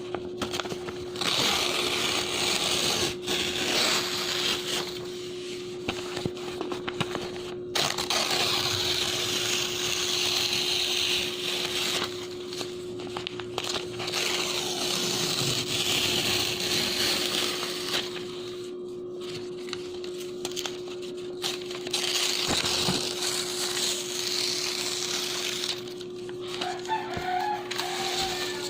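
Clean bond paper being torn in long, crisp rips, with short pauses between tears, over a steady low hum. A rooster crows faintly in the background near the end.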